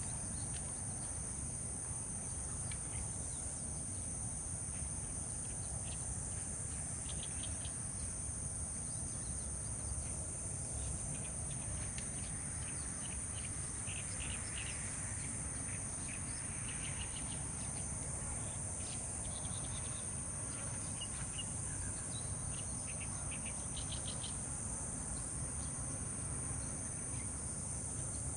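Steady high-pitched insect drone, its lower layer pulsing on and off every couple of seconds, with short bird chirps now and then over a low background rumble.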